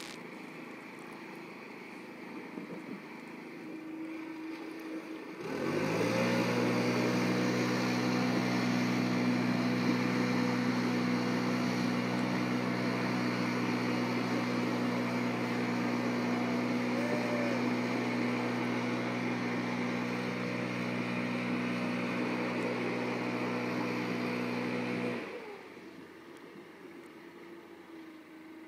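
Stihl leaf blower engine driving a jet canoe: idling, then opened up to full throttle about five seconds in with a quick rise in pitch. It runs loud and steady at full speed for about twenty seconds, then drops back to idle near the end.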